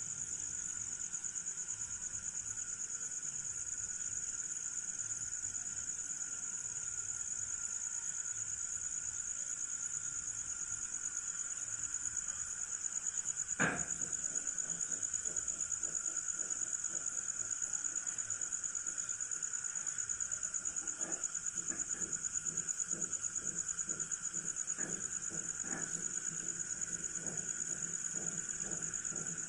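Chorus of insects trilling steadily at a high pitch, with a lower steady hum beneath. A single sharp click sounds about halfway through, and faint light ticks follow.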